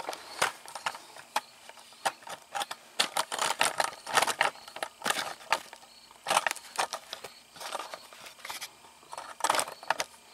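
Irregular metallic clicks and clanks of hand tools and parts being handled, as a fuel tank is readied to come down. There are short sharp knocks every half second or so, with brief gaps between them.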